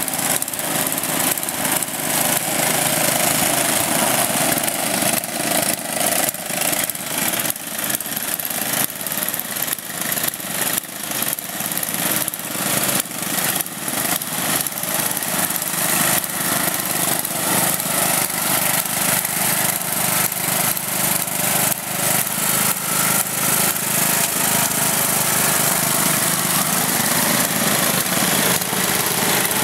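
Riding lawn mower engines running hard as the mowers push through deep mud, the engine sound rising and falling unevenly.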